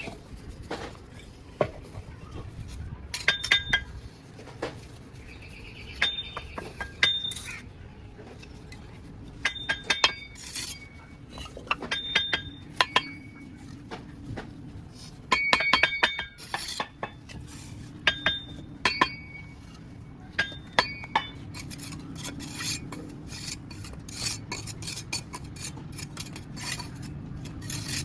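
A mason's steel trowel clinking and tapping against bricks during bricklaying: irregular clusters of sharp, ringing metallic clinks, coming more often near the end.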